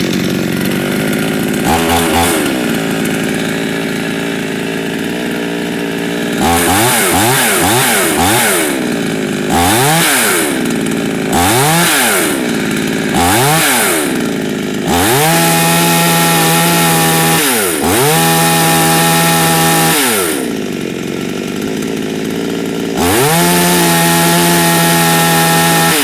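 AL-FA ALGC49 petrol two-stroke chainsaw running unloaded: idling, then a series of short throttle blips that rise and fall in pitch, then three held full-throttle runs of a few seconds each, dropping back to idle between them. It idles at about 3200 rpm and tops out near 10,000 rpm. It revs up quickly, which the owner takes for the sign of the quad-port cylinder.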